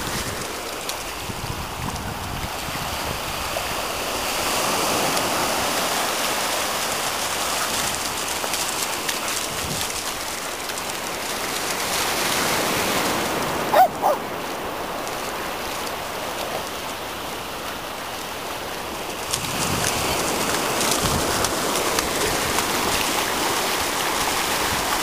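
Steady rush of surf washing up a sandy beach, with water splashing in the shallows, swelling and easing over several seconds at a time. Two short, loud, high sounds about halfway through.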